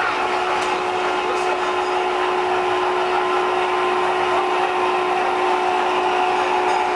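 Steady whirring hum from O gauge model steam locomotives on a layout, their smoke units running, with a steady held tone under the noise.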